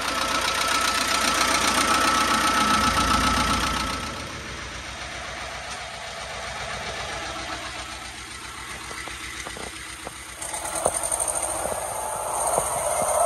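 An engine running steadily, louder for the first four seconds, then quieter, with a few sharp clicks and knocks from about ten seconds in.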